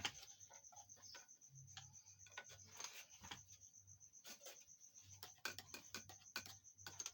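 Near silence: faint, irregular light clicks and taps over a faint steady high-pitched whine.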